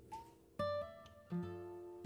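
Background music on acoustic guitar: two notes or chords struck less than a second apart, each left ringing.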